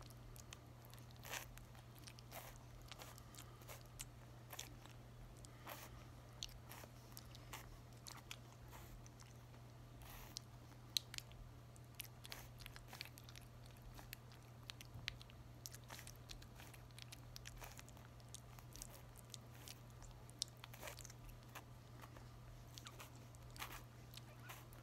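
Merle French bulldog puppy of weaning age eating soft, mushy puppy food from a hand: faint, irregular wet smacking and licking clicks.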